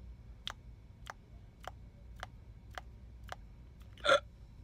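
Soft clicks at an even pace, a little under two a second, then a short, louder hum of a woman's voice near the end.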